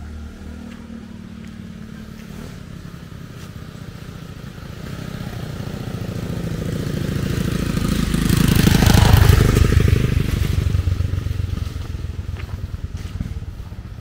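A motorcycle engine approaching, passing close about nine seconds in, and fading away.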